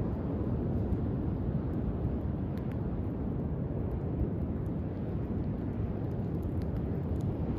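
Driftwood campfire burning on a beach, with a few faint crackles over a steady low rumble of waves and wind.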